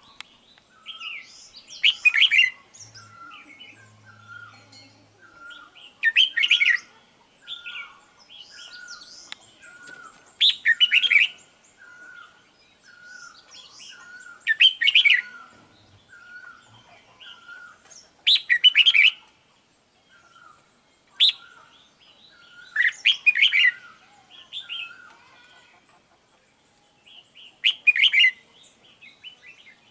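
Red-whiskered bulbul song: a loud, chirpy phrase repeated about every four seconds. Between the phrases runs a quieter string of short, evenly spaced notes.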